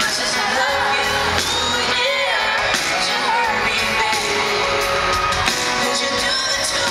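Live pop music from a concert sound system, heard from within the audience: the band playing with singing, and high screams from fans over it. A heavy bass line drops out about two seconds in.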